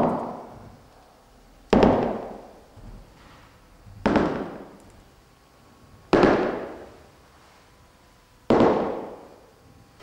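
Slow, heavy footsteps with a long echo: four thuds about two seconds apart, each dying away over about a second.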